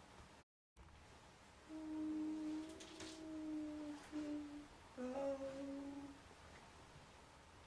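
An elderly woman humming a slow tune to herself in long held notes: a long phrase, a short note, then another held phrase.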